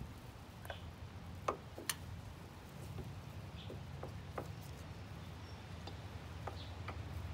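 Scattered light clicks and taps as a chrome spin-on oil filter is handled at its mount on a motorcycle engine by gloved hands, two sharper clicks about a second and a half and two seconds in, over a low steady hum.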